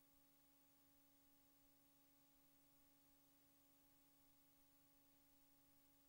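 Near silence: a faint steady hum with hiss.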